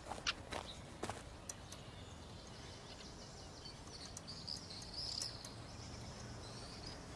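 Faint outdoor ambience: a few footsteps on gravel in the first second or so, then a steady quiet background with brief bird chirps about four to five seconds in.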